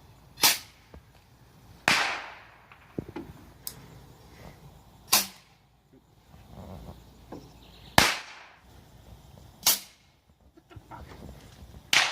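Bottle rockets going off in a string of about six sharp pops, each a second or more apart, some with a short fading hiss.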